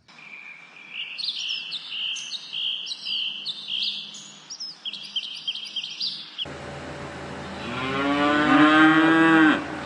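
A small bird chirping in quick repeated phrases. Then, about six and a half seconds in, a cow gives one long, loud moo that rises and then falls in pitch.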